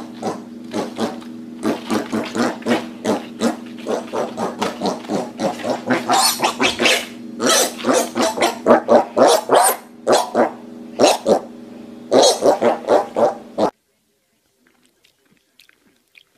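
Piglets grunting in a fast run of short grunts, several a second, over a steady low drone. The grunts grow louder in the second half, then cut off suddenly near the end, leaving only a few faint clicks.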